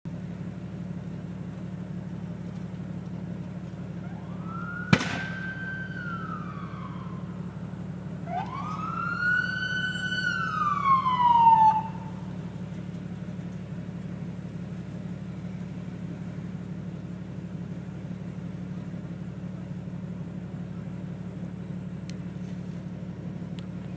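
An emergency vehicle siren sounding two rising-and-falling sweeps, a few seconds apart, over a steady low hum, with a single sharp bang about five seconds in.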